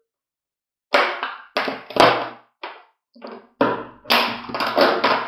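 Thin plastic of a 5-litre PET water bottle crackling and popping as a utility knife blade is pressed into it. After a second of silence come irregular short sharp crackles, closer together in the last second or so.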